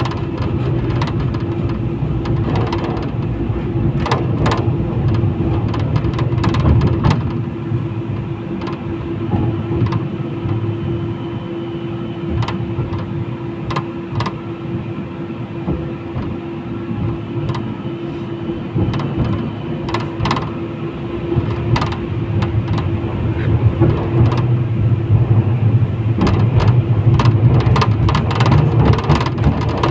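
71-911EM "Lvyonok" low-floor tram in motion: a low rumble of wheels on rails under a steady hum, with frequent clacks and rattles. It grows louder over the last few seconds.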